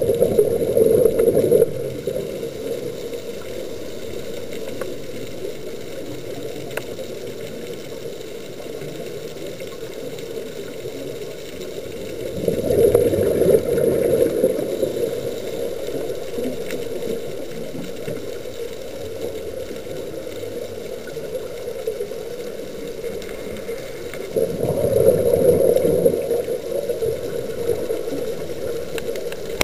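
Scuba exhalation bubbles from a diver's regulator, heard underwater: a steady low rushing, with a louder bubbling surge of about two seconds three times, roughly twelve seconds apart, one breath after another.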